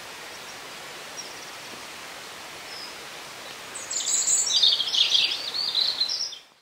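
Spring woodland ambience: a steady background hiss with faint, distant bird notes. About four seconds in, a songbird sings a loud, rapid run of high notes for about two and a half seconds, and then the recording fades out.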